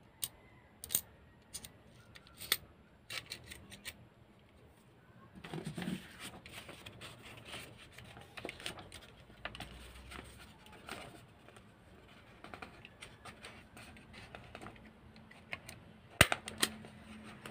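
Metal clicks of a small MAX handheld stapler being handled and snapped shut, then paper rustling, and near the end a sharp snap with a second click right after as the stapler is pressed down and drives a staple into the paper, testing the repaired stapler.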